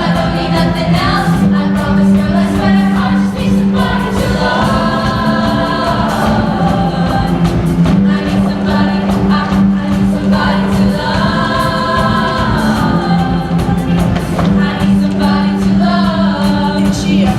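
Show choir singing in full-voice harmony, holding and shifting chords over a steady low accompaniment.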